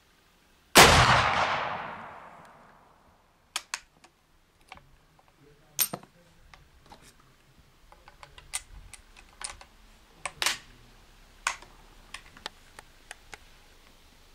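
A single shot from a .45-70 Springfield Model 1873 trapdoor rifle about a second in, its echo dying away over about two seconds. Then a run of short metallic clicks and clacks as the trapdoor breechblock is worked and a fresh cartridge is loaded.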